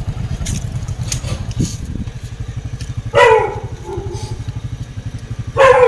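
A steady low engine-like rumble, with two short, loud animal calls that fall in pitch, one about three seconds in and one near the end.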